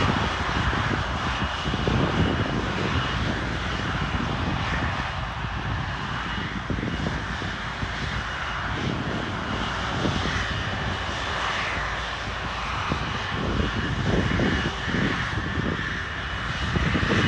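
Jet airliner engines running steadily close by, a continuous rushing noise with a thin high whine held on one pitch. Wind buffets the microphone in low gusts.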